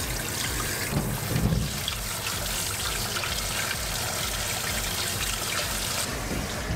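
Running tap water spraying from a sink sprayer onto bones being rinsed by hand, a steady splashing trickle, with a brief louder bump about a second in. Near the end it changes to water running over bones in a plastic basket.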